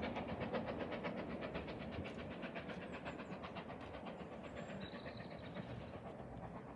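A train hauled by the steam locomotive GWR 7029 Clun Castle running away into the distance: a rapid, even beat, about ten a second, that fades steadily.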